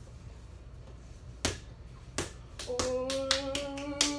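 Small ball bouncing on a hard floor: two single bounces, then quick dribbling at about four to five bounces a second through the second half, with a steady held hum over it.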